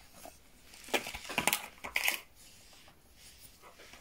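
A cloth rustling and crinkling as it is handled in black rubber-gloved hands, in a few short bursts about a second in and again around two seconds.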